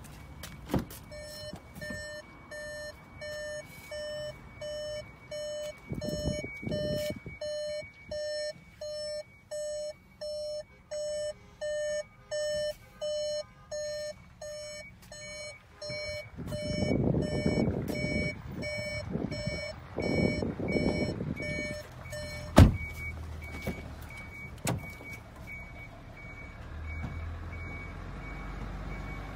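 Repeated electronic warning beeps, about one and a half a second, growing louder and then fading before stopping about 22 seconds in, with a fainter high beep going on underneath. Rustling handling noise follows, and a single sharp knock comes just after the beeping stops.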